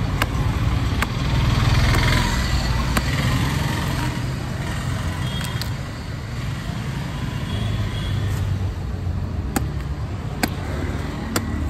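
Large curved knife chopping into the tough husks of palmyra palm fruits (ice apples): sharp, single chops at irregular gaps of one to a few seconds. Under them runs a steady rumble of street traffic.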